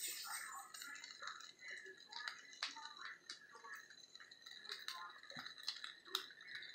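Egg omelette cooking in oil in a nonstick frying pan: faint crackling with scattered small pops and ticks.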